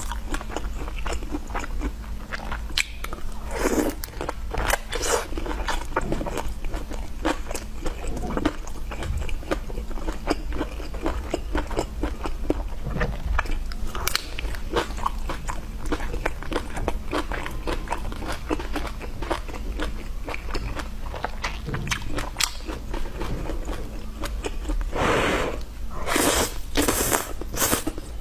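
Close-miked chewing and biting of crunchy food, a dense run of crisp crunches and crackles, with two longer hissing bursts near the end.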